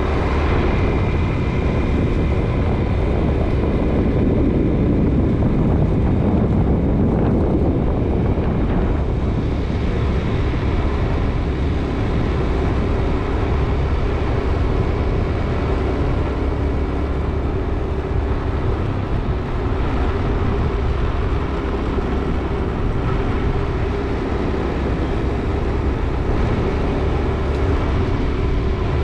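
A vehicle on the move: a steady engine and road rumble that runs unbroken, with a few faint steady tones above it.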